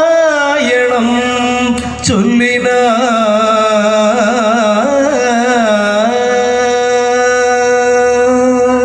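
A singer holding long, wavering notes in a Carnatic-style devotional song over a steady drone, the voice breaking off briefly about two seconds in and stopping just before the end.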